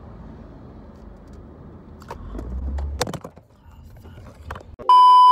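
Car cabin rumble on the move, with a few sharp knocks and rustles of the phone being handled about two to three seconds in. Near the end a loud, steady electronic beep cuts in.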